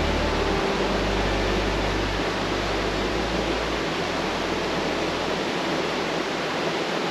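Steady rush of a fast river flowing over shallow, rough water.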